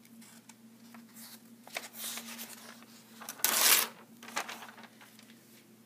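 Paper pages of a lined notepad being handled and turned over, a series of rustles with the loudest about three and a half seconds in.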